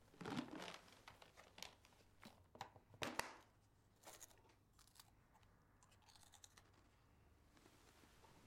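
Bedding rustling as someone shifts on a bed, then a clear plastic biscuit jar being handled and opened, with plastic crackling and small clicks; the sharpest crackle comes about three seconds in.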